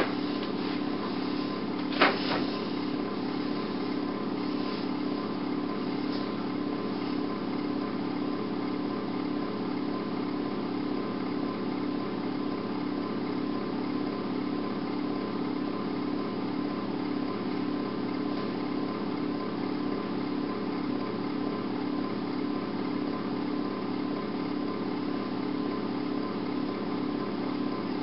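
A steady mechanical hum with a faint regular pulse and a thin steady tone above it, broken once by a sharp click about two seconds in.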